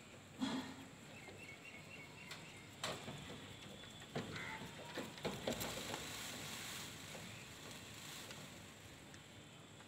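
Faint outdoor background with a distant small bird chirping a quick run of about five high notes about a second in, and a few soft knocks scattered through.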